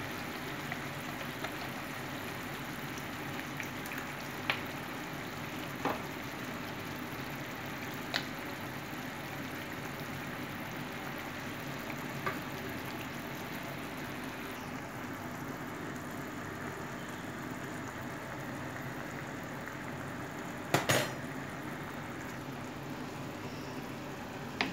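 Creamy sauce simmering in a frying pan, a steady bubbling hiss, with a few light knocks of a wooden spoon against the pan and a sharper pair of knocks near the end.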